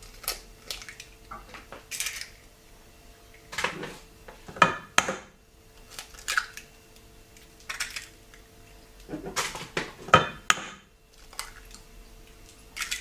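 Eggs being cracked into a stainless steel bowl: a series of sharp taps and cracks of eggshell against the metal bowl in several groups, one group per egg, with the shells crackling as they are pulled apart.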